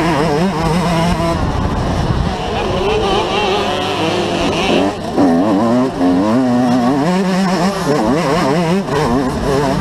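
Onboard sound of a motocross bike's engine revving hard as it races, its pitch rising and falling with the throttle, easing off briefly about five seconds in before accelerating again.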